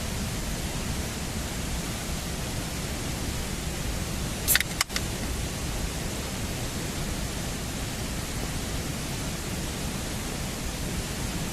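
A steady, even rushing noise, with two short sharp clicks close together about four and a half seconds in.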